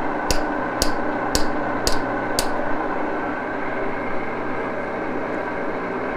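Hammer taps driving a drilled aluminum handle onto the tang of a small square file, about two a second: five strikes, stopping about two and a half seconds in. A steady mechanical hum runs underneath.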